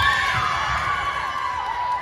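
Crowd of spectators and young players cheering and shouting together in high voices at a youth volleyball match, the cheer trailing off.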